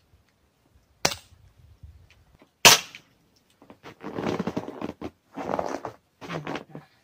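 Two pellet pistol shots about a second and a half apart, each a short sharp crack, the second louder. They are followed by a few seconds of rustling handling noise.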